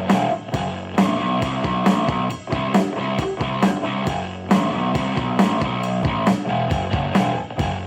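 Rock music with guitar and drums played through a Sony SRS-XB31 Bluetooth speaker, with a steady beat.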